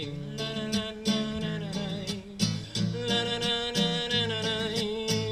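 A man sings a Russian bard song (avtorskaya pesnya) to his own strummed acoustic guitar. Strums land regularly throughout, and a little past halfway he holds a long sung note.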